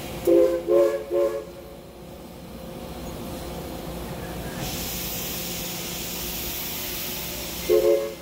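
Southern 4501, a 2-8-2 Mikado steam locomotive, sounds three short chime-whistle blasts, the signal for backing up. Steam then hisses loudly for about three seconds, and a short whistle blast follows near the end.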